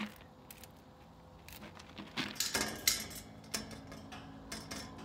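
Light metallic clinks and rattles of a wire pet cage and its metal ramps as a small animal climbs about in it: a few scattered clicks at first, then a busier run of clattering from about two seconds in.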